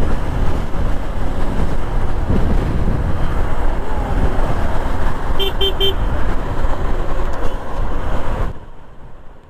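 Wind rush and road and engine noise of a motorcycle on the move, with three quick toots of a horn about five and a half seconds in. The noise drops away sharply near the end.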